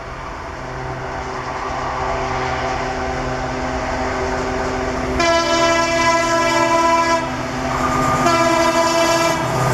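An approaching locomotive, its drone steadily growing louder, then sounding its horn: a blast of several tones at once lasting about two seconds, starting about five seconds in, and after a short break a second blast near the end.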